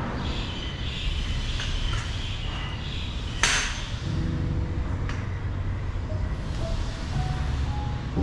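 Metal poles of a standing hammock frame being handled and fitted together: a sharp clack about three and a half seconds in and a lighter click a second and a half later, over a steady low rumble.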